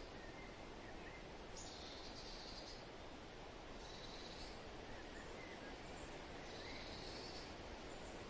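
Soft, steady wind noise with an insect trilling in roughly one-second pulses about every two and a half seconds, and a few faint bird chirps.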